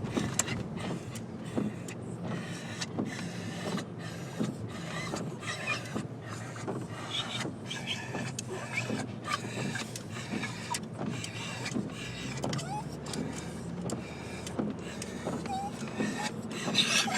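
Dogs whining and squealing in excitement inside a moving car, short high-pitched cries over a steady rumble of road and engine noise.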